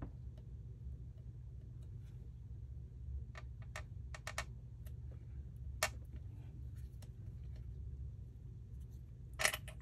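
Scattered light clicks and taps from craft tools and paper being handled at a work table. A handful come about three to four and a half seconds in, one comes near six seconds, and a sharper cluster comes near the end, over a steady low hum.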